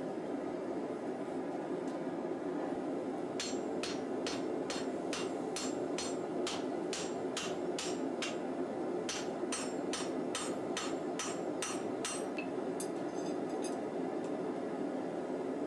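A hand hammer striking a hot steel bar on an anvil: a run of about two dozen sharp blows at about three a second, starting a few seconds in, with a short pause midway and a few lighter taps after. A steady rushing noise runs underneath.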